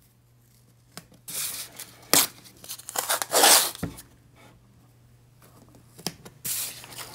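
Blue painter's tape, 2 inches wide, being pulled off its roll and torn: three rasping rips of up to about a second each, with a couple of light knocks between them.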